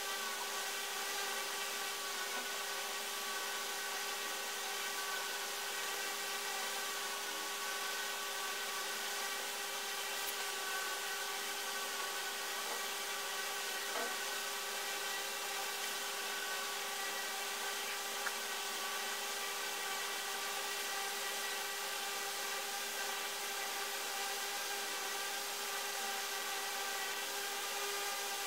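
Steady mechanical hum, several fixed tones over an even hiss, unchanging throughout.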